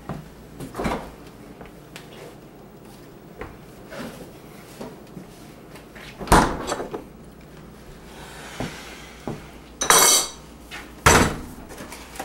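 Kitchen handling sounds: a refrigerator door and dishes or containers being handled, making scattered knocks and clatter. The loudest come about six seconds in and twice near the end.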